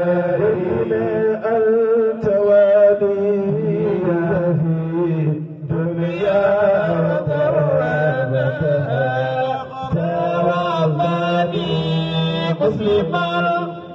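Men's voices chanting a melodic chant into handheld microphones, in long held lines, with a brief break about five and a half seconds in and another near the end.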